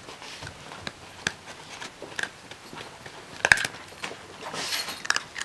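Puppy gnawing a large, hard Milk-Bone dog biscuit: scattered sharp crunches and clicks of teeth on the biscuit, the loudest about three and a half seconds in, with a brief scuffling rustle near the end.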